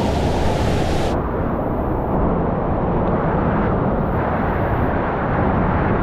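Whitewater of a steep waterfall pouring down a granite slab close by: a steady, loud rushing with no break.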